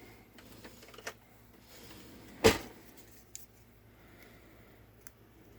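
A packaged plastic item being handled and turned over: one sharp knock about two and a half seconds in, with a few faint ticks around it, over a low steady hum.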